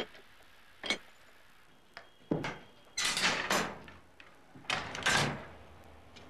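Mechanical railway signalling gear at work: levers in a signal box lever frame being thrown. A sharp metal click comes about a second in, then three heavy clanking, rattling pulls.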